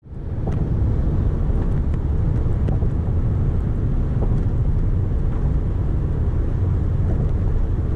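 Steady low road rumble of a car driving on the highway, heard from inside the cabin. It fades in over the first half second, with a few faint ticks.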